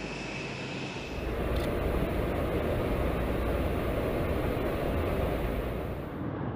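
Jet aircraft in flight: a steady rush of engine and air noise, stepping up about a second in and holding steady.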